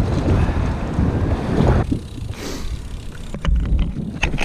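Wind buffeting the microphone of a camera riding on a moving bicycle, with a low rumble of riding noise that eases off about two seconds in. A few sharp clicks come near the end.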